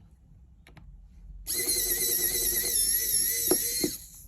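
Small electric precision screwdriver whining steadily for about two and a half seconds as it backs out a tiny screw from an iPhone home button bracket, with a couple of clicks near the end.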